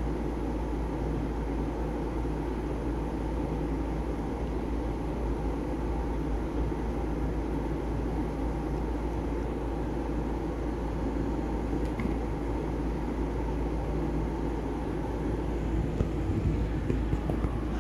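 A steady low rumble and hum of outdoor background noise, with a few small clicks near the end.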